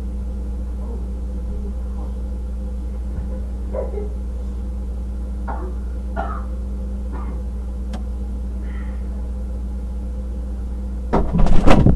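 A steady low electrical hum with faint, scattered short sounds, then a loud burst of knocking and clatter about a second before the end.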